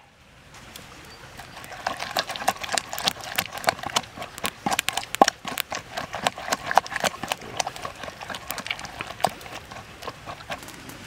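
Wooden pestle pounding wet chili paste in a wooden mortar: quick, irregular wooden knocks that start about a second and a half in and thin out toward the end.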